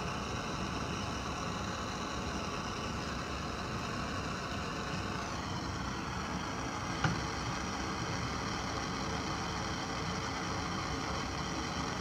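Handheld propane torch burning with a steady hiss, its tone shifting slightly about five seconds in as it is moved under the cup; a single light knock about seven seconds in.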